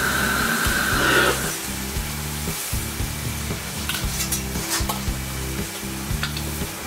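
Claypot of glass noodles, squid and vegetables sizzling and crackling over the flame. A steady high whine cuts off suddenly just over a second in.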